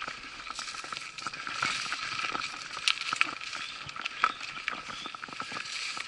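Mountain bike ridden along a narrow dirt singletrack through tall grass: steady tyre and brushing noise, with frequent small clicks and rattles from the bike over the rough ground.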